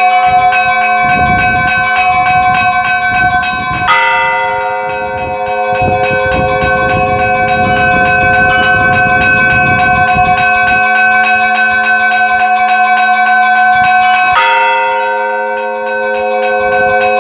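Russian church bell ringing (kolokolny zvon): many bells sounding together, with quick repeated strokes of smaller bells. A heavy bell is struck twice, about ten seconds apart, each stroke ringing on.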